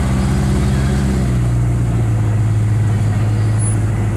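Small Mitsubishi bus's engine running while the bus drives, heard from on board; its note drops about a second and a half in.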